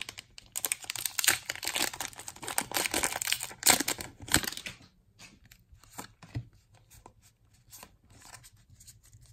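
A foil Pokémon booster pack torn open by hand, its wrapper crackling and crinkling densely through the first half; after that, a few light clicks and rustles as the cards are pulled out and handled.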